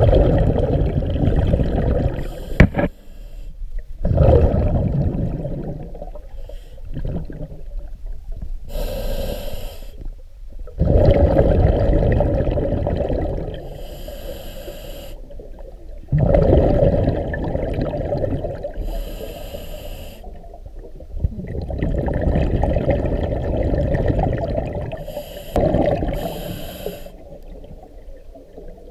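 Scuba diver breathing through a regulator, heard underwater: slow breaths, each exhalation a rumble of bubbles lasting a few seconds, with short hissing inhalations between some of them.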